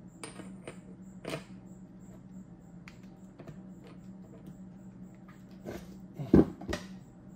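Small metal parts clicking and tapping against an aluminium J-type overdrive housing as they are handled and fitted by hand. Two louder knocks come near the end.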